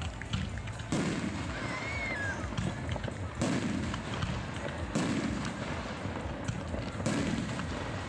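Aerial firework shells bursting overhead: four sharp bangs spaced about one and a half to two and a half seconds apart, each followed by a short rumble.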